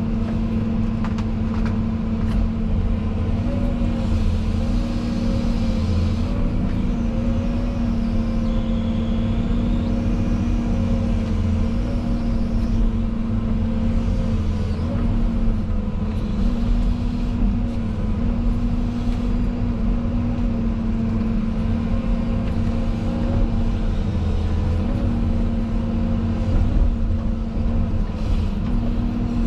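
Tractor engine running steadily as the front loader works, its note dipping slightly now and then under load.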